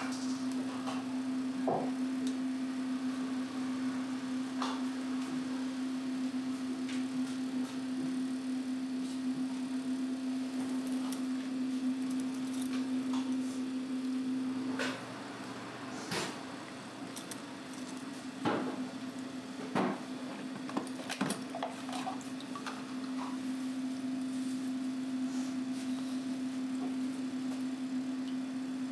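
Light clicks and knocks of bamboo skewers and peeled boiled eggs being handled and set down on a bamboo basket, over a steady low hum that drops away for a few seconds midway.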